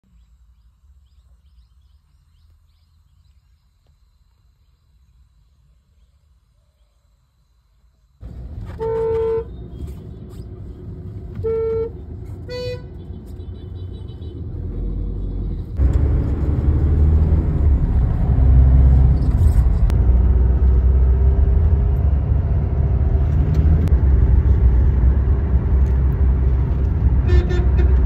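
Car horn honking in three short toots over traffic rumble, the first and longest about nine seconds in. Before that there is only a faint low rumble; after them a louder, steady traffic noise takes over.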